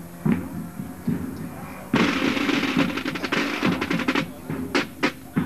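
Marching band drums playing: a few scattered low drum beats, then about two seconds in a loud snare drum roll breaks in and rapid drumming carries on.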